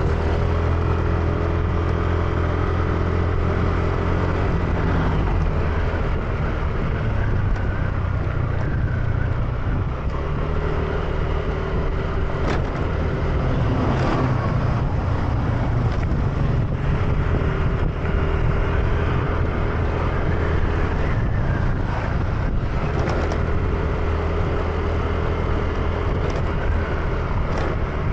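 Motor scooter engine running steadily while riding along, a continuous low hum with wind and road noise over it.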